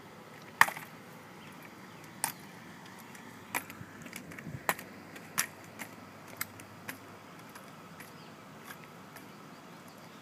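Metal underarm crutches knocking and tapping on a concrete sidewalk as a person walks on them: sharp, uneven clicks about once a second, the loudest about half a second in, growing fainter toward the end.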